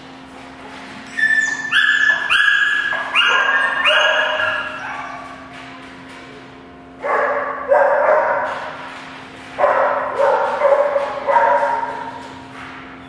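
A dog barking in short, high yips: about four quick ones in a row, each falling in pitch, then two more bursts of barking later on.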